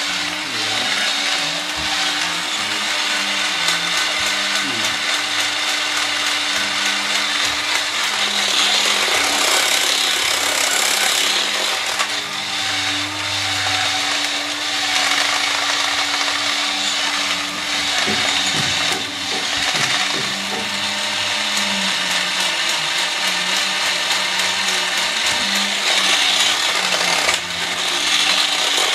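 Robot 2001 toy robot's motor and gears running continuously during a test run: a steady whirring with a low hum underneath.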